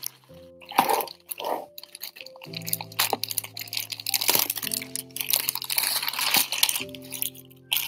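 Clear plastic packaging crinkling and crackling in irregular bursts as it is handled and pulled at, over background music of sustained chords that change every couple of seconds.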